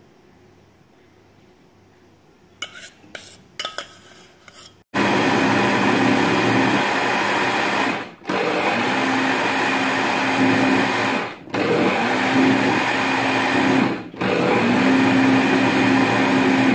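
Electric mixer grinder with a steel jar grinding thick, chilled jackfruit ice-cream mixture. It runs loud and steady in four spells of about three seconds each, with a brief stop between them, its hum rising as each spell starts. A few clicks and knocks come just before it is first switched on, about five seconds in.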